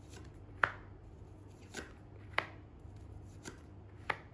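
Tarot cards being handled and laid down: about five sharp card snaps spread over four seconds, the loudest about half a second in and near the middle.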